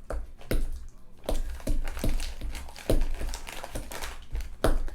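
Bananas being mashed in a bowl, the masher knocking against the bowl with squishy crushing, about two strikes a second.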